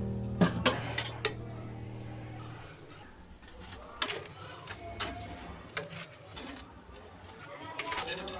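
Metal spatula clinking and scraping against a steel tawa as an onion paratha is turned and pressed while it cooks: a quick run of sharp taps in the first second and a half, then scattered taps and scrapes.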